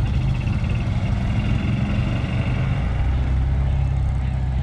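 A vehicle engine running steadily with a low rumble. A faint high whine sits over it for the first couple of seconds.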